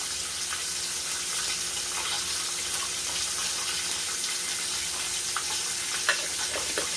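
Chicken frying in hot oil in a pan, a steady sizzle with a few faint crackles.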